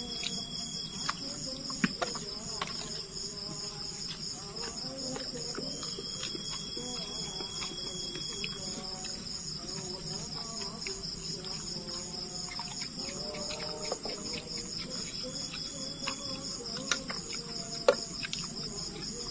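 Night insects trilling steadily, a continuous rapidly pulsing high chirr, joined now and then for a couple of seconds at a time by a second, lower steady buzz. Scattered light clicks and clinks of dishes and a serving spoon sound over it.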